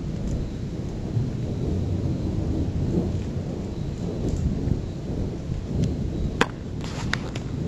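Long, low rumble of thunder from an electrical storm, with a few sharp clicks near the end.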